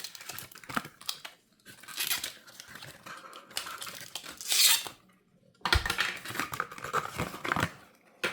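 Cable packaging being torn open and handled, in several noisy bursts of ripping and rustling, the loudest a sharp rip about four and a half seconds in.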